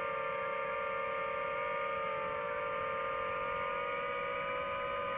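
Quadcopter drone's motors and propellers humming steadily in flight, heard through the onboard camera's microphone, the pitch holding nearly constant.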